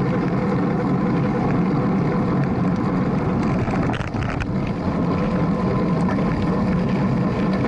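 Steady wind rush and road rumble picked up by a handlebar-mounted camera on a road bike moving at about 23 mph, with a short cluster of clicks about four seconds in.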